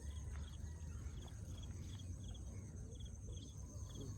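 Cricket chirping steadily, short pulsed chirps about two to three a second, over a low steady rumble.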